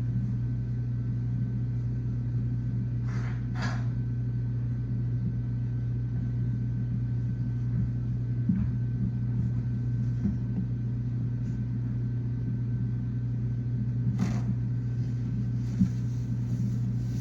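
Steady low hum of a running machine. Two short hissing sounds come close together about three seconds in, and another near the end.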